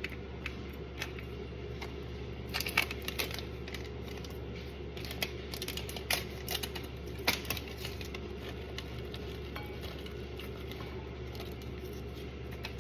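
Dishes and utensils clinking and tapping as toppings and dressing are added to a plated meal. The light taps come in scattered clusters, a few around three seconds in and more between five and seven and a half seconds, over a steady low hum.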